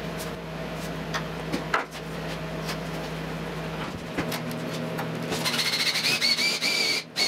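Small clicks and scraping of a screwdriver tightening a hose clamp on a steel roller chain, over a steady low hum. About four seconds in, the chain rattles and clicks as it is pulled by hand past its sprockets, with a faint high wavering whine from about five seconds in.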